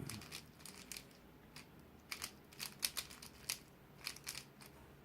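Plastic layers of a small magnetized 42mm Zanchi 3x3 Rubik's-type cube clicking as it is turned fast during a solve, in irregular quick runs of clicks with short pauses.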